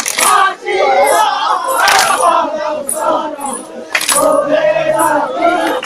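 A chorus of men singing and chanting a Bengali jari gaan folk song in a loud, crowded group, with a sharp strike about every two seconds keeping the beat.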